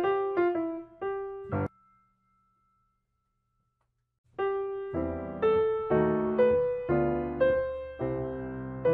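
Background piano music. It cuts off suddenly just under two seconds in, leaves near silence for about two and a half seconds, then starts again.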